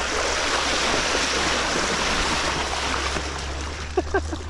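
Rushing, splashing river water as a vehicle wades through a deep river crossing: a loud, steady hiss of churned water with a low hum underneath.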